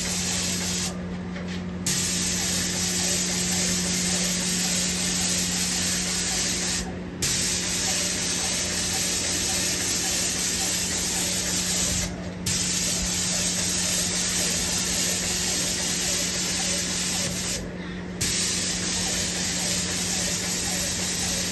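Airless putty sprayer gun hissing as it sprays putty onto a wall. The hiss breaks off briefly four times, about 1, 7, 12 and 18 seconds in, and a steady low hum runs underneath.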